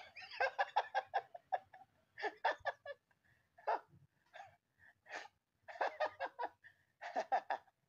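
Laughter in several runs of quick, short 'ha-ha' bursts, with short pauses between the runs.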